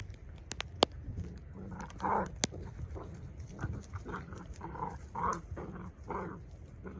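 Two puppies play-fighting, making a run of short growls and yips from about two seconds in. Sleet ticks sharply on the microphone now and then.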